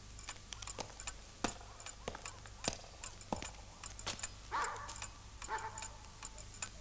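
Irregular crackle of sharp clicks throughout. Two short pitched cries come a little past the middle, about a second apart.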